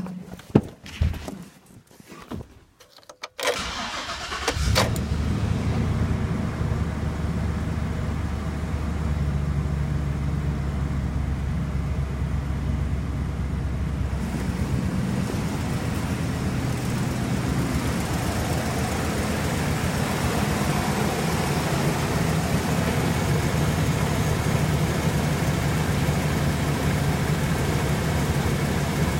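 A Chevrolet Express van's 6.0 L Vortec V8 is cranked briefly on the starter, catches about four and a half seconds in, and then idles steadily. A few knocks and clunks come just before the crank.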